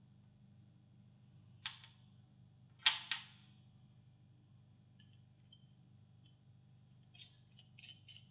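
Metal parts of a spray gun clicking and tapping together as they are handled and fitted during reassembly: a sharp click, a louder double click about a second later, then a few light ticks near the end, over a faint steady hum.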